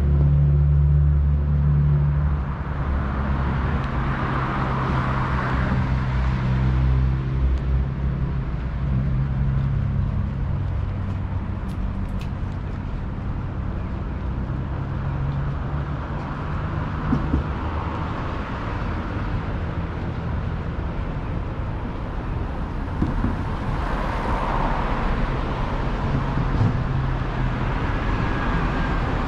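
City street traffic. A low engine hum is strong at first and fades after about seven seconds, then cars pass one after another, their tyre noise swelling and fading several times.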